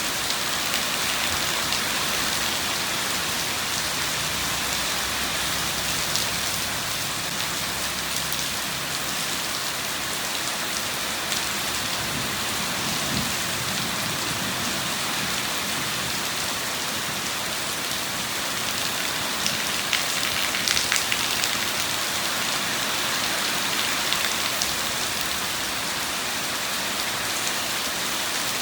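Steady heavy rain falling, an even hiss of many drops, with a faint low rumble through the first half and a few louder drops about two-thirds of the way in.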